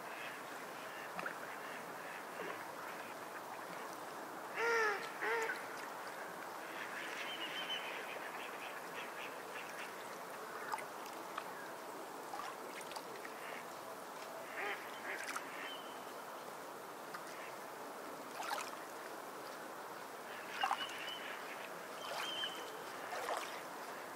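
Ducks quacking over a steady background hiss: two loud quacks close together about five seconds in, with further short, softer calls scattered through.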